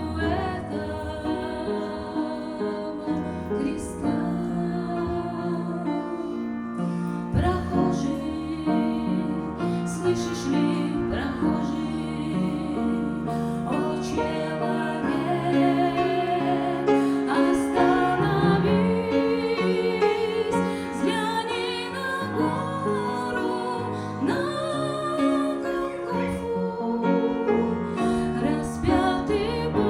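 A woman singing a slow song with vibrato over instrumental accompaniment.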